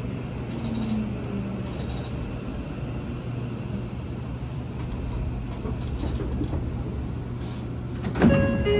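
Seibu 40000 series electric train standing at a station platform with a steady low hum from its onboard equipment. About eight seconds in the passenger doors slide open with a sudden loud rush, followed by ringing tones.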